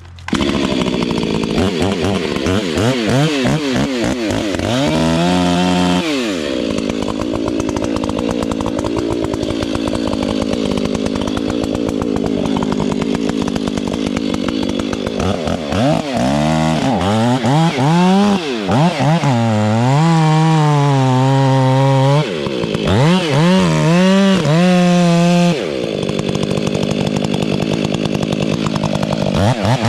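Gas chainsaw cutting a dead fir stem: the engine runs at steady high revs through long stretches of cutting, and its pitch rises and falls several times in between as the throttle is worked.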